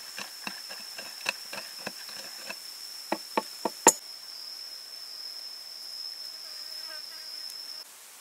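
Pestle pounding chili sauce in a wooden mortar, about three to four wet strikes a second, followed by a few sharper knocks, the last and loudest about four seconds in. Under it a steady high insect buzz runs on and cuts off suddenly near the end.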